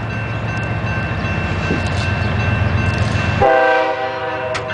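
An approaching diesel locomotive rumbles, then about three and a half seconds in it sounds its air horn, a loud chord of several notes held steady, as the coal train nears a road crossing.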